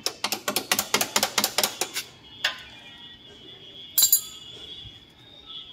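Ratchet wrench clicking rapidly for about two seconds while undoing a rear disc brake caliper bolt, followed by a couple of sharp metallic clinks of tools and parts, the loudest about four seconds in.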